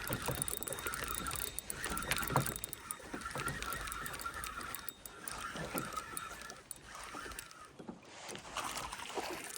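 Fishing reel being cranked in a steady whir for several seconds, with scattered knocks against a canoe and a low wind rumble.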